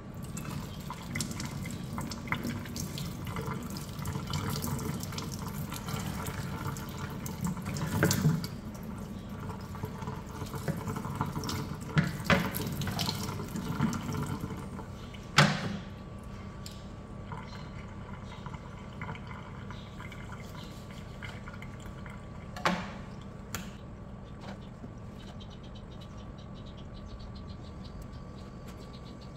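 Kitchen tap running into a stainless steel sink as raw beef is rinsed under the stream, with a few sharp knocks; the water stops about halfway through, and after it a single knock.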